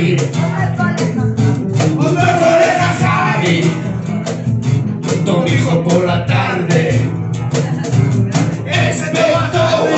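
Small acoustic band playing live: upright double bass, strummed acoustic guitar and cajón, with a man singing into a microphone.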